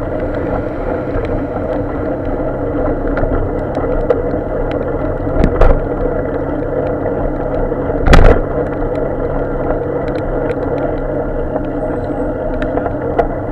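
Steady noise of riding a bicycle on a wet road: tyre hiss and wind on a bike-mounted camera, with traffic standing alongside. Two loud thumps come about five and a half and eight seconds in, and faint clicks run throughout.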